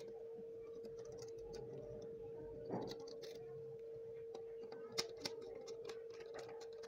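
A screwdriver making small scattered clicks and scrapes on the terminal screws of a switch-and-socket board as wires are fastened. A faint steady hum runs underneath.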